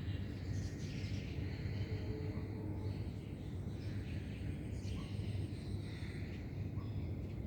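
Steady low background hum with faint, scattered higher chirps.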